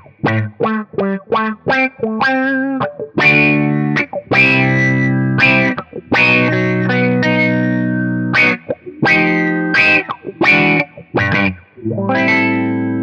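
Electric guitar played through a Mu-Tron Micro-Tron IV envelope filter: short picked notes and chords, each with a wah-like sweep as the filter follows the pick attack. Near the end a chord rings out and sustains.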